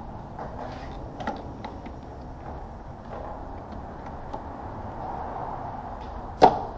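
Scattered light clicks and taps of hand tools and parts being handled in a car's engine bay, with one sharp knock a little before the end.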